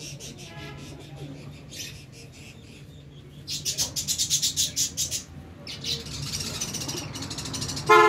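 Domestic pigeons' wings flapping: a quick flutter of about ten beats a second for nearly two seconds midway, followed by lighter fluttering and rustling.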